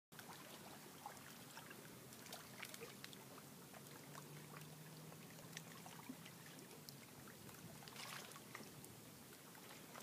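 Near silence with faint splashes and trickles of shallow lake water as a person wades through it.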